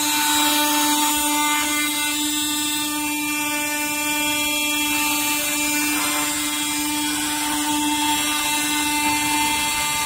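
Cordless oscillating multi-tool running steadily as a high-pitched buzz, its blade pressed against the inner form tube. It is vibrating freshly poured castable refractory to settle the mix and drive out air bubbles.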